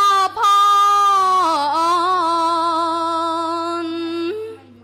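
A young woman's solo voice chanting Khmer smot, unaccompanied Buddhist chanted verse. She holds one long note with wavering ornaments and slight dips in pitch, and it dies away shortly before the end.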